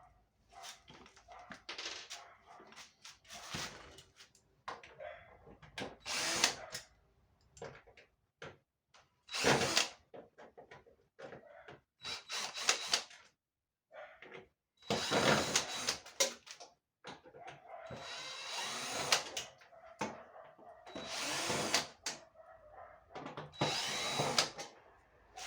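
Power drill running in repeated short bursts, about a second or two each, with clicks and knocks between them.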